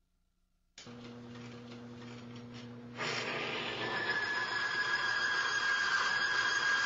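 Electric motor of a bench lubricant friction tester starting suddenly and humming, then about three seconds in a much louder grinding screech with a steady high whistle as the torque-wrench lever loads the test bearing against the spinning oil-lubricated wheel. It is metal-on-metal friction under load that scores the bearing.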